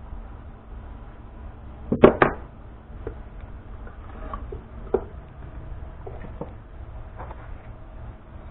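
Metal tools handled on a wooden workbench: two sharp knocks close together about two seconds in, then a few lighter clicks and knocks, over a low steady hum.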